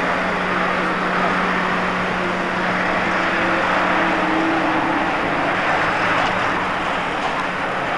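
Three-axle tipper truck's diesel engine running at low speed while it manoeuvres, its note shifting slightly about halfway through, under a steady hiss.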